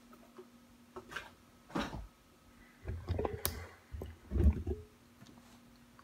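Handling noise: a few soft knocks and rustles as a handheld camera is moved over the desk and the boxed laptop is handled, the loudest about four and a half seconds in, over a faint steady hum.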